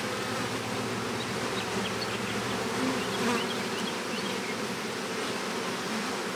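A colony of honeybees humming steadily over an open hive box, the frames crowded with bees.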